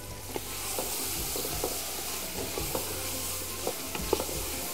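A thick tomato, potato and spice mixture sizzling in a large aluminium pot, stirred with a wooden spoon that scrapes and knocks against the pot about once a second.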